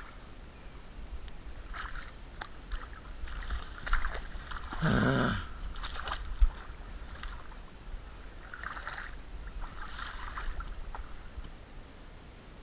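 Soft, scattered squelching footsteps of slippers on a wet, muddy creek bank, with a low wind rumble on the microphone. A brief, louder noise comes about five seconds in.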